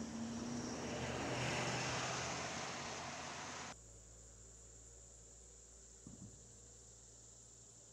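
An engine's noise swells and fades for the first few seconds, then cuts off abruptly. A steady chorus of crickets and other insects is left, with one faint low bump about six seconds in.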